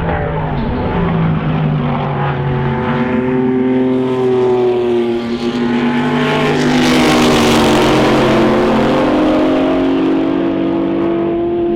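Racing car engine running hard, its pitch rising and falling, loudest about seven seconds in as the car passes close.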